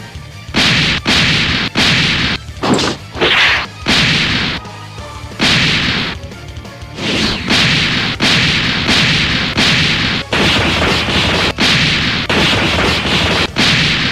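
Dubbed fight sound effects: a fast run of punch impacts and whooshes, one or two a second, with music underneath.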